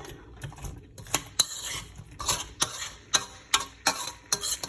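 A utensil stirring frozen stir-fry vegetables in a frying pan, clacking against the pan in quick, uneven strokes about two to three times a second.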